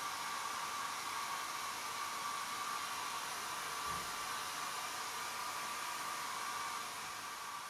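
Handheld hair dryer running steadily: a constant rush of air with a faint steady whine, easing off slightly near the end.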